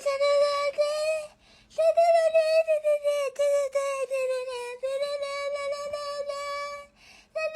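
A high, voice-like note held in long stretches, wavering slightly in pitch, broken by two short pauses.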